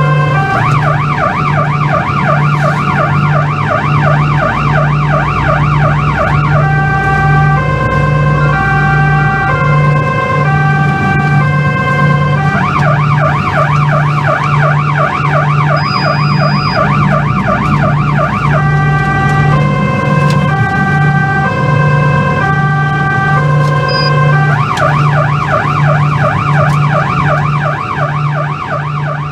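Police van siren heard from inside the van, switching every few seconds between a stepped pattern of tones that change about twice a second and a fast warbling yelp of about four sweeps a second. A low pulsing hum runs underneath, and the sound fades near the end.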